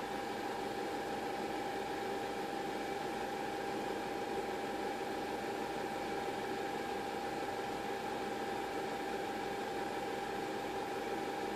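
Steady machine hum with a constant whine and an even hiss, unchanging throughout.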